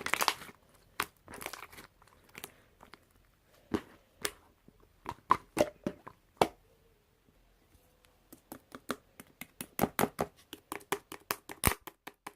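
Hands squishing and stretching slime, making irregular crackles and pops. From about eight seconds in comes a quick run of small clicks.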